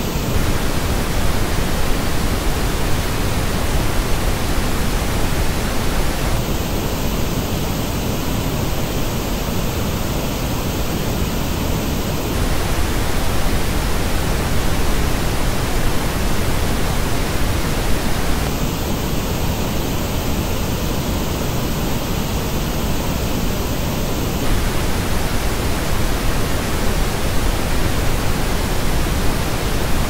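Pink noise test signal, a steady hiss that switches about every six seconds between the flat original and a version shaped by the Hifiman Ananda Stealth's measured frequency response. The shaped version has dips in the upper midrange and the high treble, which show the headphone's departures from a linear response.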